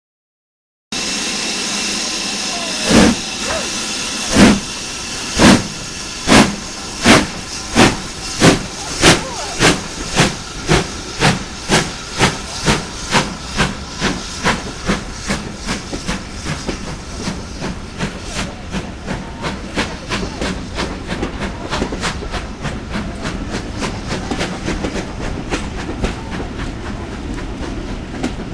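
Steam locomotive pulling a train away from a standstill. After a second of silence there is a steady hiss of steam, then exhaust chuffs begin about three seconds in, slow at first and quickening to about three a second, growing fainter and running together as it draws away.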